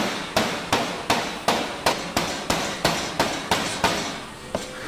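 Cleaver chopping raw seafood on a cutting board: about a dozen quick, even strikes, roughly three a second, stopping about four seconds in.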